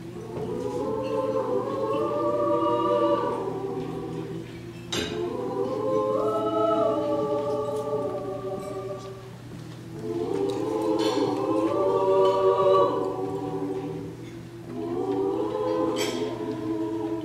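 Mixed choir singing in several parts, in four long held phrases with short breaks between them.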